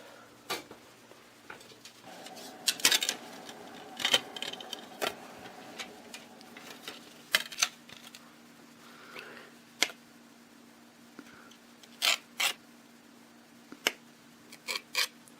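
Scattered sharp clicks and taps of small hard objects being handled, irregular and a few seconds apart, over a faint steady hum.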